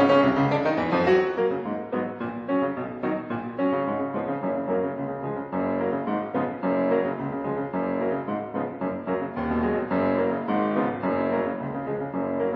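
Piano music, a little louder in the first second or so.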